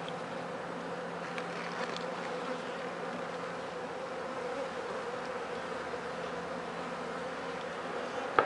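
Honeybees buzzing around an opened hive, a steady hum, with one sharp knock right at the end.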